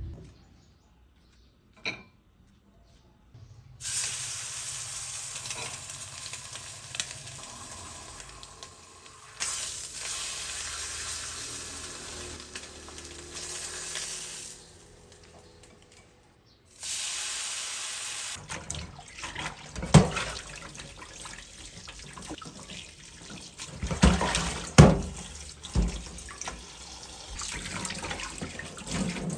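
Kitchen sink tap running water in a steady stream, turned off for a couple of seconds midway and then on again. During the second run there are several sharp knocks and clatters.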